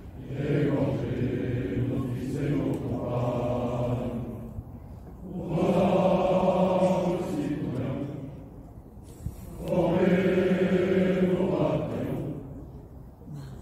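A group of soldiers singing a regimental song together in unison, in three long phrases with short pauses between them.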